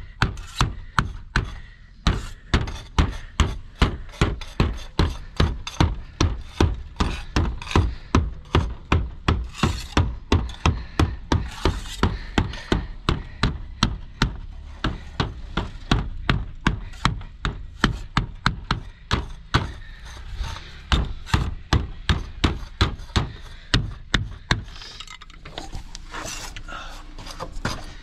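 Club hammer beating lead flashing down against the base of a brick wall: a steady run of dull knocks, about three a second, broken by a few short pauses.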